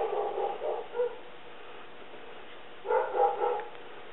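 Dog barking in two short bouts: a quick run of barks through the first second, then a couple more about three seconds in.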